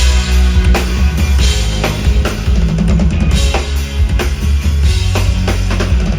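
Band music starting up with a steady drum-kit beat of bass drum and snare over bass and held chords.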